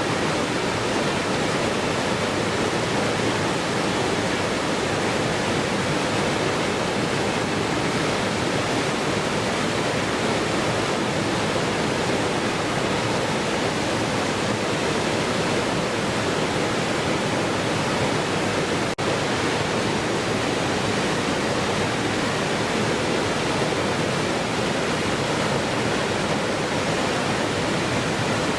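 Waterfall: a steady, even rush of falling water, with a momentary dropout about two-thirds of the way through.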